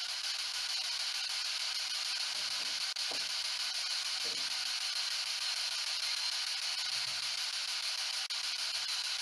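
Ghost box sweeping through radio frequencies: a steady hiss of radio static with two very short cut-outs and a few faint, short snatches of sound beneath it.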